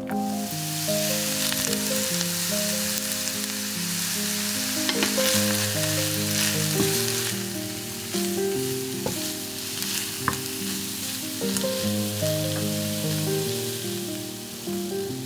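Cauliflower florets sizzling in hot oil in a frying pan, stirred with a wooden spatula that now and then knocks and scrapes against the pan. Background music plays underneath.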